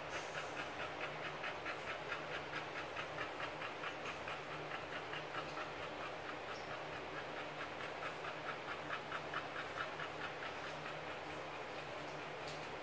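American Bully mother dog panting rapidly and steadily, about three breaths a second, fading near the end.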